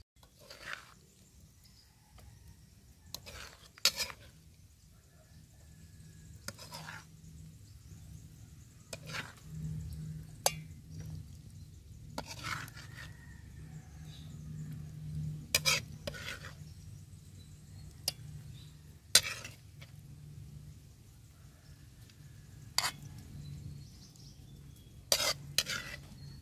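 A metal ladle clinking and scraping against a stainless steel pan and pot as stew is scooped from one into the other: a dozen or so sharp separate clinks, a few seconds apart, some in quick pairs. A low steady hum runs underneath.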